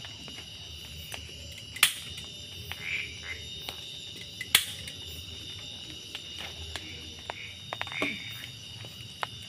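Night-time forest chorus of insects and frogs: a steady high-pitched drone of several tones, with a few short calls. Scattered small clicks and two loud sharp clicks, about two seconds and four and a half seconds in, cut through it.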